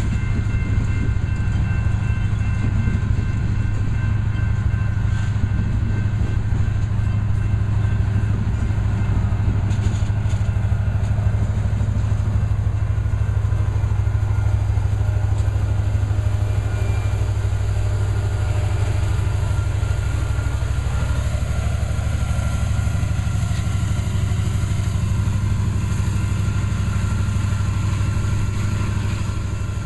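Loaded coal train's freight cars rolling by: a steady, heavy rumble of steel wheels on rail.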